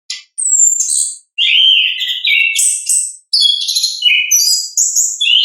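Chestnut-capped thrush (anis kembang) singing a fast, varied song of high whistled and chattering notes, in three phrases broken by short pauses; this is the full open song that keepers call ngeplong.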